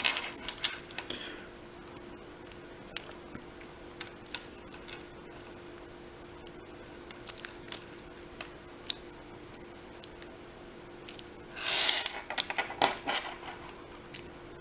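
Metallic clicks and rattles of a disc detainer pick being worked in a Rolson disc detainer padlock, with scattered single clicks and a burst of clinking and jangling about twelve seconds in. The lock feels picked but will not open.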